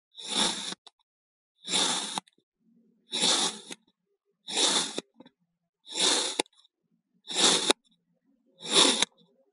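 Kinetic sand being sliced with a blade, seven crunchy cuts at an even pace, about one every second and a half. Each cut lasts about half a second, and some end in a sharp tick.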